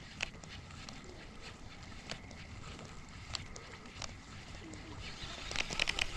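Faint, steady outdoor background with a few scattered sharp clicks, then a cluster of knocks and rubbing near the end as the camera is handled and covered.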